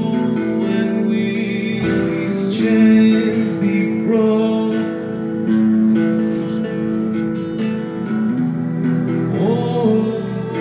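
Guitar played live, picked and strummed chords ringing out, with a sung note gliding in pitch near the end.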